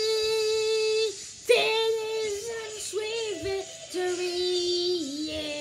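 A child singing a song unaccompanied, holding long drawn-out notes of about a second each, the later ones stepping lower in pitch.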